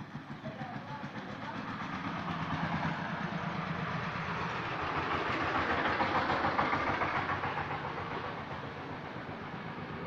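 A passing vehicle's rhythmic rattling rumble, growing louder to a peak about six seconds in, then fading.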